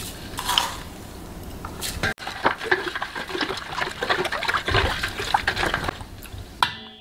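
Wooden spoon stirring liquid in a large stainless steel bowl, sloshing and swishing as coarse sea salt is dissolved into the water for water kimchi. A couple of sharp taps come first, and the stirring grows busier about two seconds in.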